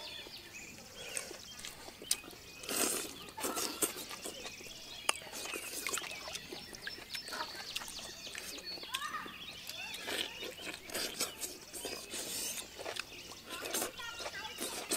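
People eating by hand: irregular short smacks, slurps and chewing noises, with a few bird chirps in the background.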